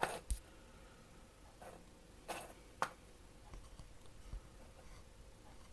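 A handful of light clicks and taps, spread over the first three seconds, over quiet room tone.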